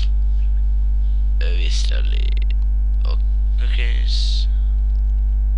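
Steady electrical mains hum in the recording: a loud, unbroken low buzz with a ladder of evenly spaced overtones above it.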